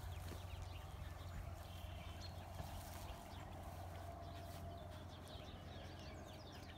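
Faint scuffling and padding of two puppies playing through grass and mulch, over a steady low hum and scattered short high chirps.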